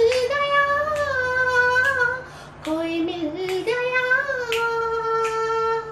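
A single voice singing an Indian film song without accompaniment, in a high register with long held notes; about three seconds in it drops to lower notes briefly, then rises to one long held note over the last two seconds.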